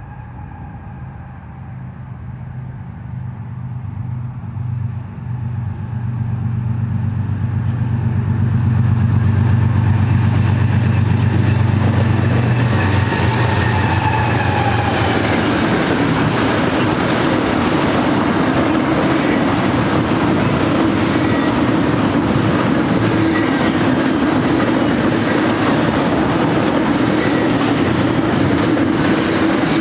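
A BNSF double-stack intermodal train led by GE ES44DC diesel locomotives approaches and passes. The locomotives' diesel engines drone low, growing louder for the first fifteen seconds or so. The engine drone then gives way to the steady rumble and clickety-clack of the container cars' steel wheels on the rails.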